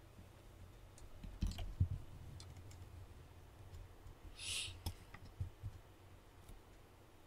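Faint handling noise: scattered clicks and two low knocks a couple of seconds in, then a short hiss about four and a half seconds in, followed by a few more clicks.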